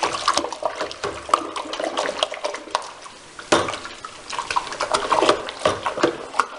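Water with Star San sanitizer being stirred and sloshed with a spoon in a plastic fermenting bucket, with irregular splashes as the spoon churns the foaming solution.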